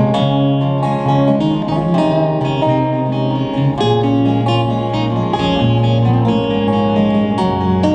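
Instrumental passage of live band music: acoustic guitar plucked and strummed over sustained low bass notes that change every second or so.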